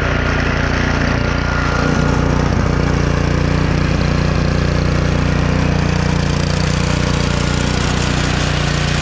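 Honda GCV190 single-cylinder overhead-cam engine on a pressure washer, running steadily with its cleaned carburetor, the pump spraying water from its open outlet.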